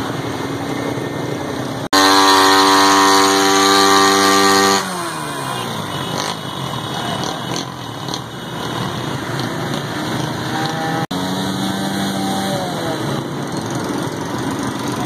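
Small motorcycle engine revved hard and held for about three seconds, then dropping back as the throttle is released, over street noise of traffic in floodwater; later, quieter revs rise and fall again.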